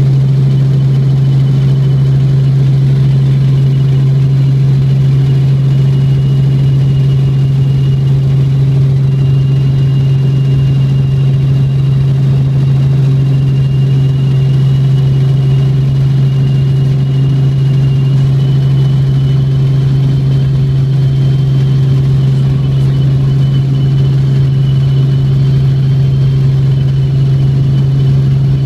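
Helicopter in flight: a loud, steady low drone with a thin high whine that wavers slightly in pitch.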